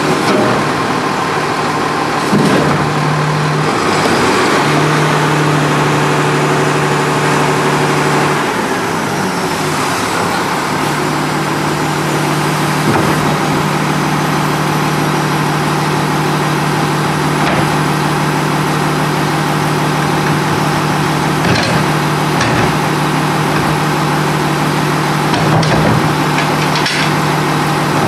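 An Autocar ACX rear-loader garbage truck running with a steady, pitched drone from its engine and hydraulics. The drone breaks off briefly twice in the first ten seconds. A few short clanks come later as the tipper and cart are worked.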